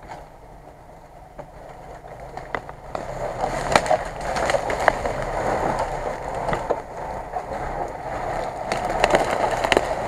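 Lada Niva (VAZ-2121) crawling through forest undergrowth: a low engine hum under a crunching of tyres over leaves and fallen branches, with sharp cracks of snapping twigs. It is faint at first and gets louder from about three seconds in as the car nears.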